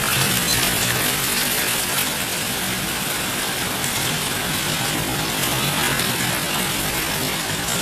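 Hailstones pelting a flooded concrete courtyard in a hailstorm, a dense, steady clatter of countless small ice pellets striking the ground and water.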